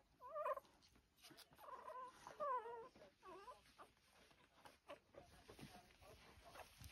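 Two-week-old Lancashire Heeler puppies whimpering: several short, wavering high cries in the first three seconds. Faint rustling and small clicks follow as they push in to nurse.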